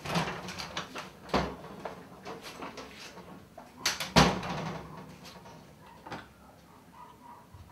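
A door and its wrought-iron security gate being opened and shut: a run of knocks and clatter, the loudest bang about four seconds in, and one last knock about six seconds in.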